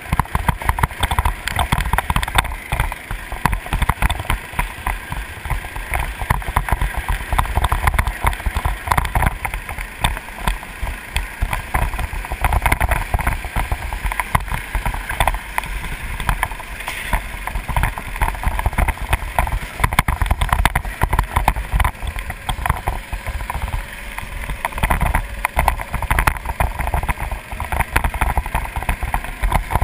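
Onboard a racing go-kart at speed: heavy wind buffeting on the microphone, with the kart's engine running underneath.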